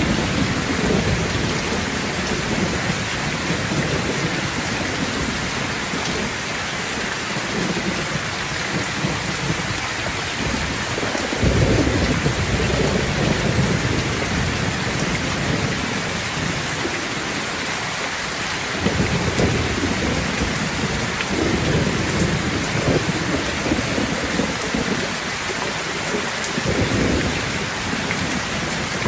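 Steady heavy rain hissing on surfaces, with rolls of thunder: a low rumble fading out over the first few seconds, then two more rumbles swelling in suddenly about twelve and nineteen seconds in and dying away over several seconds each.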